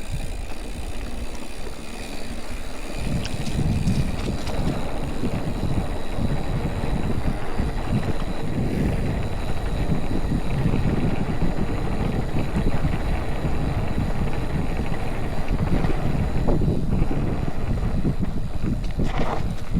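Wind buffeting the microphone of a chest-mounted action camera on a moving mountain bike, with the rumble of tyres over the trail beneath it. A faint steady high whine runs underneath.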